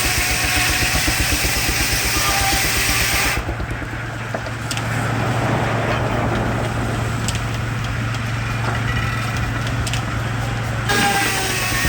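Steam-powered circular sawmill running: a Baker steam traction engine drives a Frick sawmill with a steady low hum and a fast even rhythm, and the sound shifts abruptly twice.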